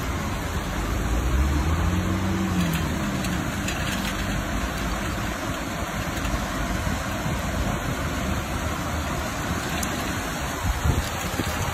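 Steady hiss of rain falling on a wet city street, with traffic driving through the wet road below; about two seconds in, a passing vehicle's engine hum rises and falls in pitch.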